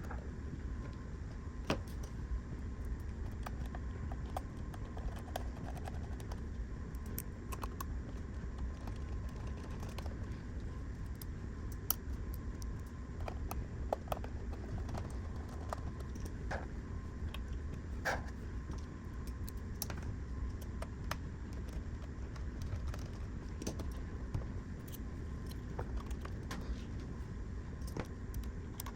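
Scattered small clicks and taps of console parts and tools being handled while an Xbox Series S is reassembled, over a steady low hum.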